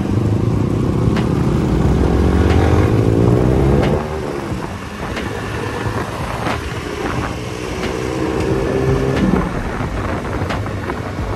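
Yamaha R15 V3's 155 cc single-cylinder engine accelerating hard from a pull-away. Its pitch rises for about four seconds, drops at a gear change, then climbs again and drops once more near the end.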